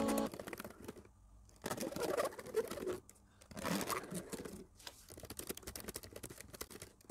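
Typing on a laptop keyboard: quick, light key clicks, thickest in the second half. Two louder stretches of indistinct noise come in the first half.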